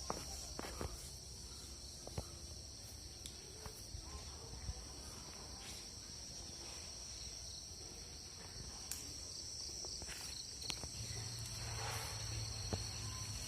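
Crickets trilling in a steady, continuous high drone, with a few scattered faint clicks.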